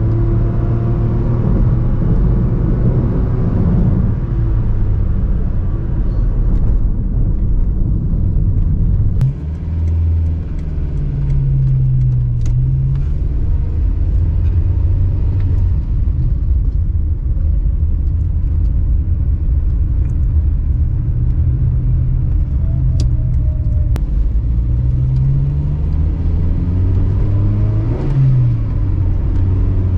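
Suzuki Alto 660cc three-cylinder engine and tyre noise while cruising at about 100 km/h, a steady low drone that dips briefly about nine seconds in and wavers in pitch twice. Its rotary whirring note is one the owner finds slightly irritating, though he judges the overall sound acceptable.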